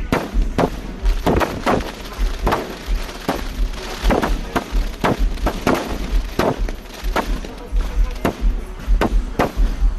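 Fireworks going off in quick succession: a steady barrage of sharp bangs, about two or three a second, over low booms.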